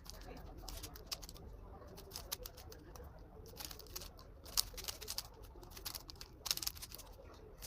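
3x3 Rubik's cube being turned by hand: the plastic layers click and clack in quick irregular flurries as it is solved.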